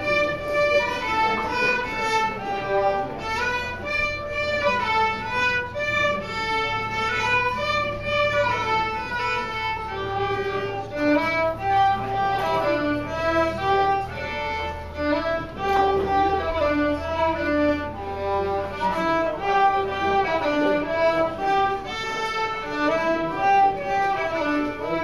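Three violins playing a tune together, a steady run of short bowed notes; lower notes join in about ten seconds in.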